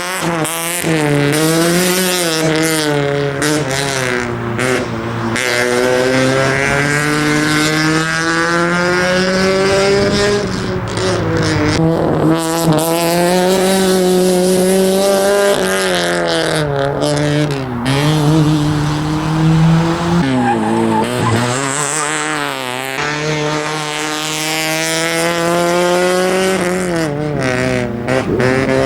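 Honda Civic race car engine working hard through an autoslalom run, its revs climbing and dropping over and over as it accelerates, shifts and brakes between cones, with tyres squealing through the turns.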